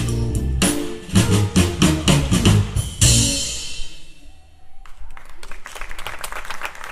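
Live band of electric guitar, bass guitar, keyboards and drum kit playing the last bars of a tune to a final accented hit about three seconds in, a cymbal ringing out after it. About two seconds later audience applause begins.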